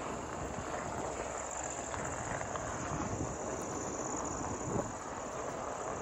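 Crickets trilling steadily at dusk, a continuous high-pitched trill, over a steady rushing noise of wind and movement.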